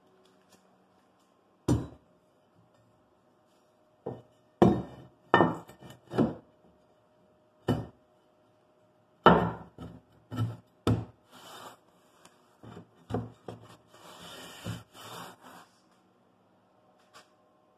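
A steel C-channel being fitted by hand into a milled groove in a plywood table: about a dozen irregular knocks and taps of metal against wood, with a short scraping rub about fourteen seconds in.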